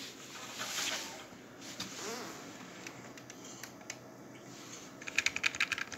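Soft rustle of handling noise, then a quick run of computer keyboard key presses, about ten clicks in a second, near the end.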